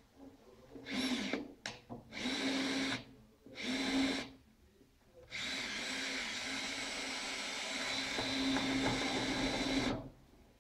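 Cordless drill working into a wooden chair frame: three short bursts of the motor, then one long steady run that stops near the end.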